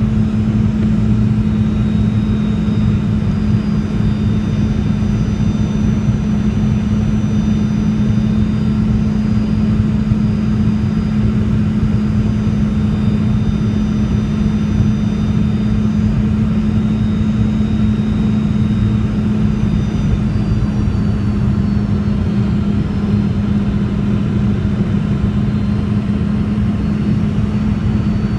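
Cabin noise inside a Boeing 717 in flight, its Rolls-Royce BR715 turbofans running steadily: a dense rumble with a strong low hum and faint high whines above it.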